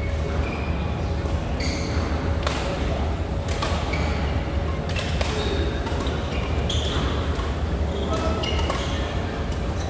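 Badminton rackets striking shuttlecocks: many sharp hits at irregular intervals, mixed with short high squeaks and background voices over a steady low hum.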